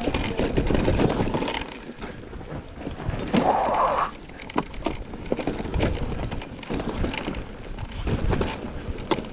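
Mountain bike riding down a rough trail: wind buffeting the microphone, with the tyres and bike rattling and knocking over the ground, and a short louder burst a little after three seconds in.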